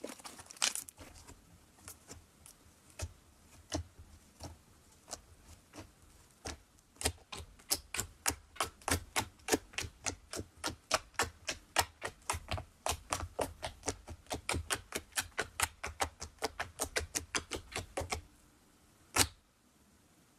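Fingertips poking into a slab of thick slime, each poke making a sharp little click or pop. The pokes are scattered at first, then come in a fast run of about four a second from about seven seconds in, stopping shortly before one last louder click near the end.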